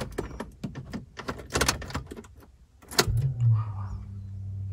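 Keys jangling and a run of short clicks and knocks as the Honda Civic is readied to start. About three seconds in, a steady low electric hum from the car comes on and holds.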